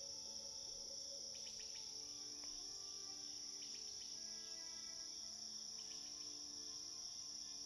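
Faint, steady high-pitched chorus of crickets, with soft sustained music notes underneath.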